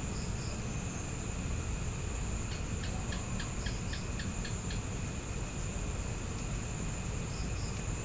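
Evening insect chorus: crickets trilling steadily in several high, even tones over a low rumble. About two and a half seconds in comes a run of rapid chirps, about five a second, for roughly two seconds. Short two-note calls sound near the start and again near the end.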